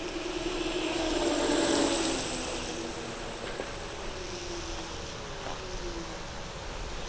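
Segway Ninebot G30 Max electric scooter riding on solid airless tires: the hub motor's whine over a gritty tire hiss. It is loudest about two seconds in, then the whine drops in pitch as the scooter slows.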